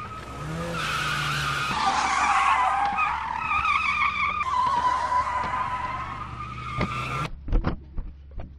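Sound effect of a car drifting: engine running and tyres squealing with a wavering pitch. The sound cuts off about seven seconds in, followed by a few sharp thumps.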